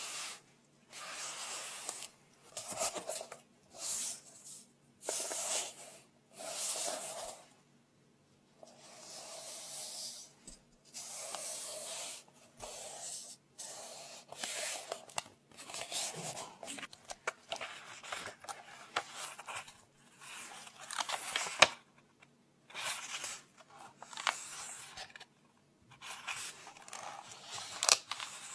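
Pages of a paper book being turned one after another close to the microphone, each turn a short rustle, with a couple of sharp taps among them.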